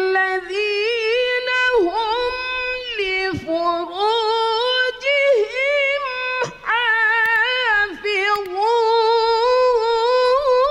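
A woman reciting the Qur'an in the ornamented tilawah style of a qoriah, drawing each syllable out into long wavering notes with a few short breaks for breath. The pitch climbs to a higher held note near the end.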